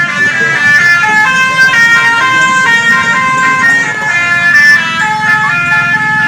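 A passing odong-odong tourist vehicle playing a loud melody of sustained electronic tones that step up and down in pitch every half second or so, over the low hum of its engine.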